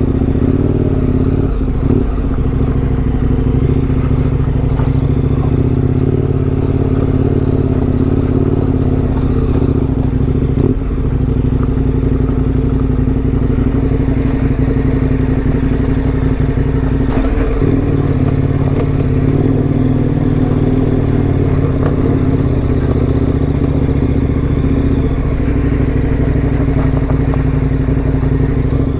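KTM 1090 Adventure R's V-twin engine running at a steady, low pace as the bike rides up a rocky trail. A few brief knocks come through, about two seconds in, near the middle and about two-thirds of the way through.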